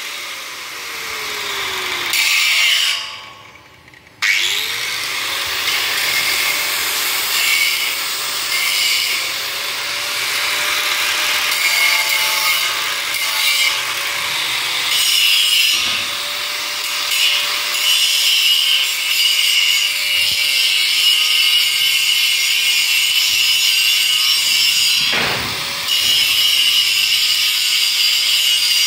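Handheld angle grinder grinding a steel frame. Over the first two seconds the motor slows and goes nearly quiet. About four seconds in it starts again and grinds steadily against the steel to the end, with a short dip near the end.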